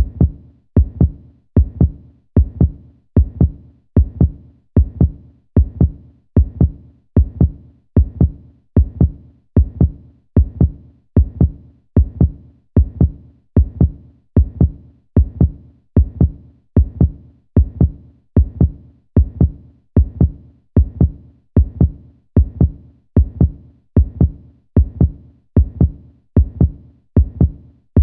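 Heartbeat: a steady lub-dub, two deep thumps close together, repeating at an even pace of a little more than one beat a second.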